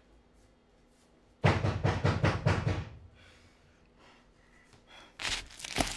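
Fist pounding rapidly on a wooden door: a fast run of heavy knocks for just over a second, then a few more loud knocks near the end.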